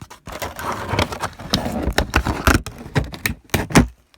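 Hard blow-moulded plastic of an old tool case crackling and snapping in irregular sharp cracks as its insert is cut out by hand.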